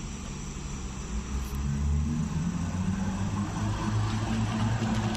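Low, steady engine hum of a vehicle running nearby, growing louder about a second and a half in.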